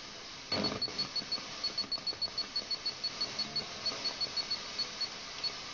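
FM static hiss from a Sanyo FXR-22LP car radio tuned to a weak, distant station received by sporadic-E skip, with a rapid train of faint high-pitched ticks at about six a second over the hiss.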